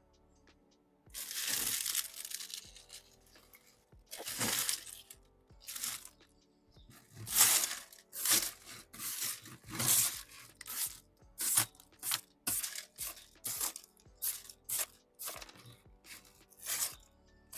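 Dry, dead succulent leaves being pulled off and crushed, crackling and tearing in repeated bursts: a long one about a second in, then shorter, quicker ones from about halfway.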